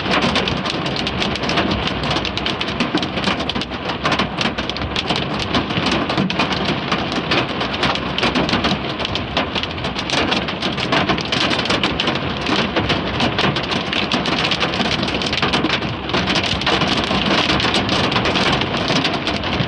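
Hail mixed with heavy rain hitting a car's windshield and body, heard from inside the car: a dense, steady clatter of impacts.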